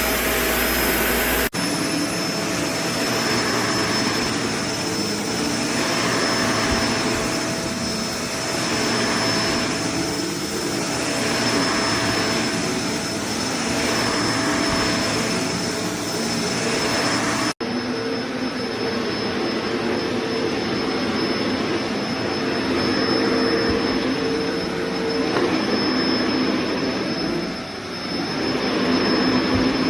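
Kenmore BU4050 bagged upright vacuum cleaner running with a steady motor whine, its sound swelling and fading about every one and a half seconds as it is pushed back and forth. The sound changes abruptly twice.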